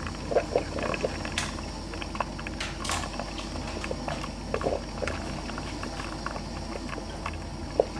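Drip coffee maker brewing: steady gurgling and bubbling with many small irregular pops and clicks.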